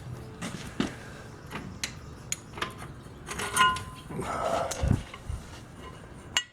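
Small metal parts and tools being handled: a string of clicks and clinks, one ringing briefly about three and a half seconds in, and a dull thump near the end.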